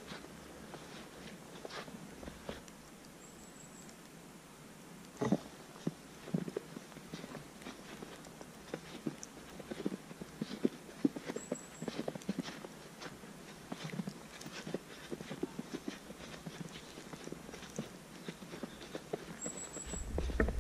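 A hiker's footsteps crunching through fresh snow at a walking pace, sparse at first and more regular from about five seconds in.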